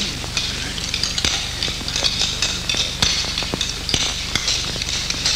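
Cutlery and dishes clinking at a banquet table: scattered light clicks and clinks over a steady low hum.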